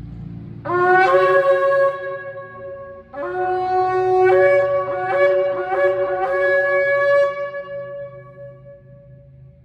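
Long Yemenite shofar blown: a short blast that scoops up in pitch at its start, then a longer blast re-attacked in several quick pulses before it trails off and fades.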